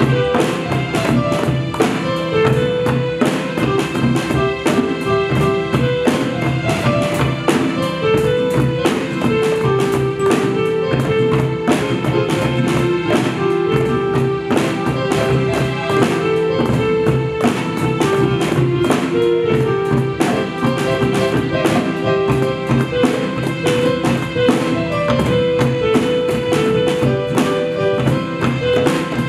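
Student band playing an instrumental piece: congas, cajón, hand drum and drum kit keep a steady, fast beat under a melody of held notes, with acoustic guitar.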